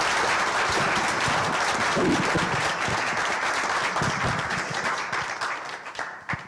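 Audience applauding, a dense clapping that fades away near the end.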